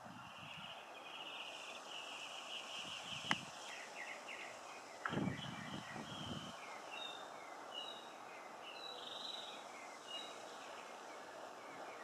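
Songbird singing a varied string of short chirps and trills. A sharp click comes about three seconds in, and a low rumble about five seconds in.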